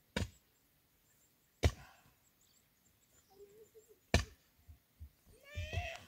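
Three heavy chopping blows on wood, unevenly spaced. A brief rising call is heard near the end.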